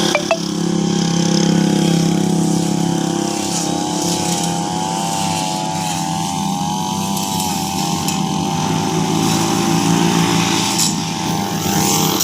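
Small petrol engine of a grass-cutting machine running steadily while cutting grass, its pitch wavering slightly up and down. There are a couple of short clicks about a third of a second in.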